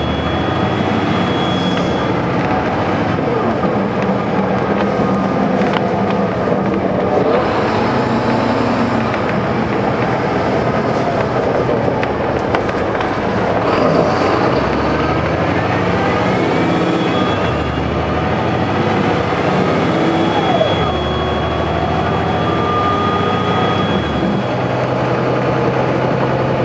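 A NABI 416.15 transit bus's Caterpillar C13 ACERT diesel engine idling steadily while the bus stands at a stop.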